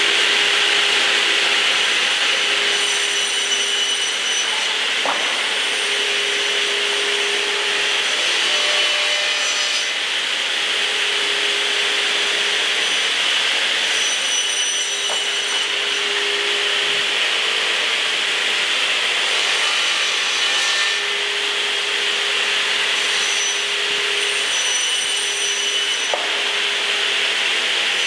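Through-feed cross-cut trimming saw running, its circular saw blades cutting lumber with a steady, even hiss and a faint hum that comes and goes.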